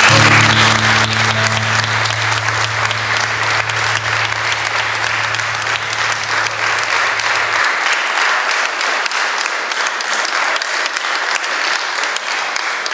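Guests applauding: a crowd's dense, steady clapping. Underneath it, music with low held notes that stop about seven and a half seconds in.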